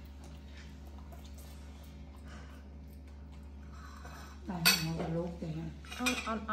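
Cutlery clinking and scraping faintly against a plate and a metal bowl while eating, over a steady low hum. About four and a half seconds in, a woman's voice comes in briefly and loudly, and again near the end.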